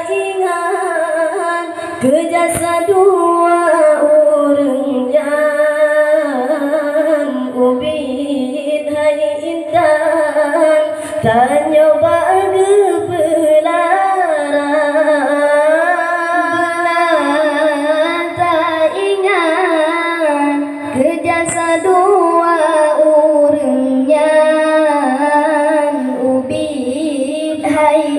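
Boys singing an Acehnese qasidah, an Islamic devotional song, into microphones: a high-voiced melody with long held notes that bend and waver up and down.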